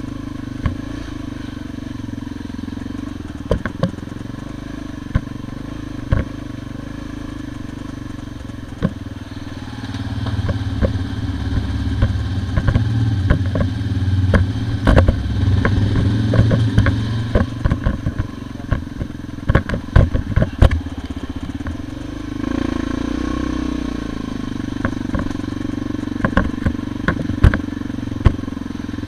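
Motorcycle engine running at a steady, low pace, with frequent sharp knocks and clatter as the bike jolts over ruts and stones on a rough dirt track. The engine grows louder from about ten seconds in for roughly twelve seconds, then settles back.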